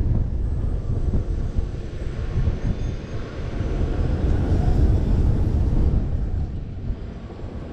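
Wind rushing over the microphone of a ride-mounted action camera as the rider is swung through the air on a looping amusement ride: a loud, low rushing rumble that eases about three seconds in, swells again, and drops off near the end.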